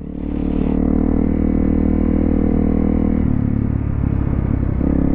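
Single-cylinder 250cc four-stroke dual-sport motorcycle engine running steadily under way, its note dropping lower about three seconds in.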